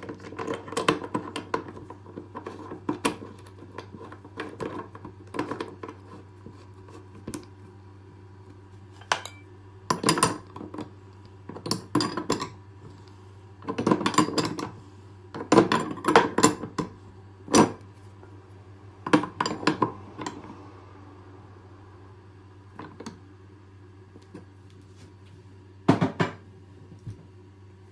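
Hard parts clicking, knocking and clattering as they are handled, in irregular bursts with pauses, over a steady low hum.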